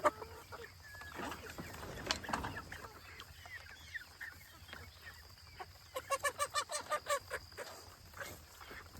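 Young chickens clucking and calling, with a quick run of about eight clucks about six seconds in.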